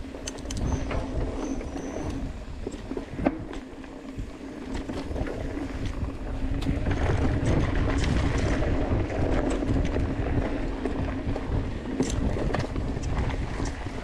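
Mountain bike descending a dry dirt trail: tyres rumbling over loose dirt with wind noise, a steady buzz from the rear hub as the bike coasts, and a few sharp knocks from rocks and bumps.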